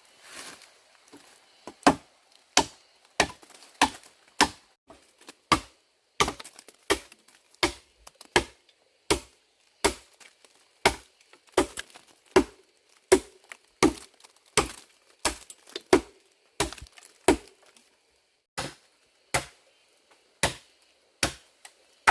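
Repeated sharp blows into wood, like chopping, at about one and a half strokes a second, with a brief pause about three quarters of the way through.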